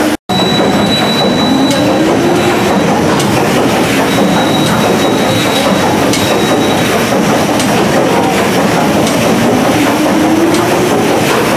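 The paddle steamer Waverley's triple-expansion diagonal steam engine running: a loud, dense mechanical clatter with a sharp knock about every one and a half seconds and a thin, steady high whine. The sound breaks off for a moment just after the start.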